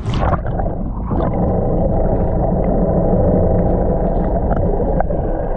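Strong tramontana wind buffeting the microphone on a small boat, a dense low rumble, with a couple of brief knocks.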